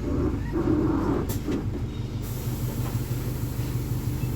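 VolksBus 9.160 OD Euro V bus diesel engine running with a steady low drone, with a short high hiss about a second in.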